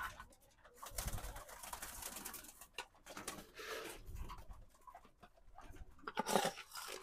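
Domestic pigeons cooing in their wire loft cages, mixed with stretches of rustling noise.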